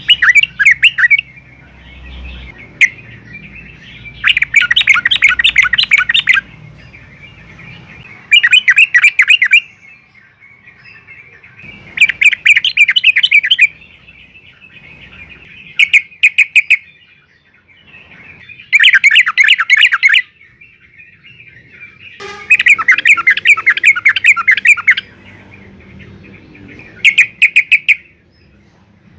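Yellow-vented bulbul (trucukan) singing: about nine loud phrases of rapid chattering notes, each lasting one to two seconds, with short pauses between.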